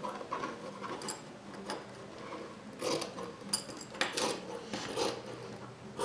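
Dressmaking scissors snipping through fabric: a series of irregular, crisp snips as the steel blades close on the cloth, several in quick succession around the middle.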